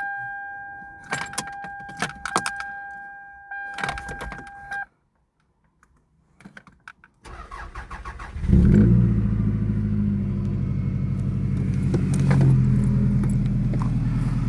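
Keys jangling against a steady two-tone dashboard warning chime for about five seconds, then a brief quiet and a short burst of starter cranking before the 1999 Toyota Camry's engine catches about eight and a half seconds in and keeps running, started from a jump box on a weak battery. The owner says this engine was already knocking and tapping.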